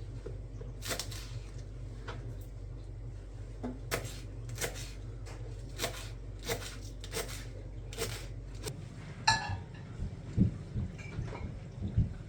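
Kitchen handling sounds: a run of light clinks and knocks of dishes and utensils, roughly one every half second, over a steady low hum that cuts off about nine seconds in. After that come softer, dull knocks.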